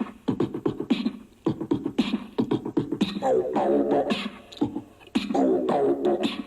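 Vocal beatbox: a man's mouth-made drum beat of kick and snare sounds, for break dancing. Two longer buzzing, pitched vocal effects ride over it, about three seconds in and again about five seconds in.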